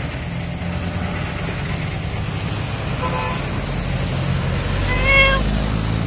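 Fire truck engine idling steadily, with a short high-pitched tone twice, faint about three seconds in and louder near the end.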